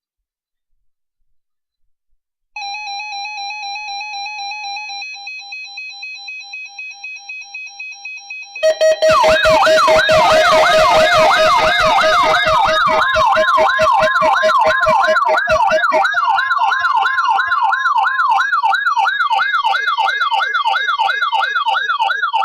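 Electronic siren tones. About two and a half seconds in, a warbling alarm tone starts. About six seconds later, several much louder siren sweeps rising and falling rapidly over a steady tone join it and run on until they cut off suddenly.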